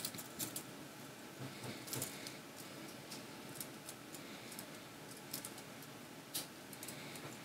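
Faint scattered clicks and light metal clinks of a stainless steel link watch bracelet being fastened and shifted on the wrist.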